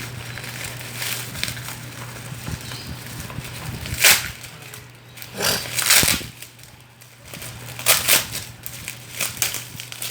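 Packaging being handled and opened: rustling and small crackles, with three louder crinkling bursts, over a steady low hum.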